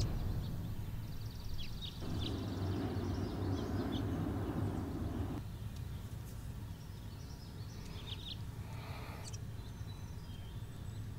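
Small birds chirping in short, repeated calls over a steady low hum, with a rush of noise for about three seconds that stops abruptly.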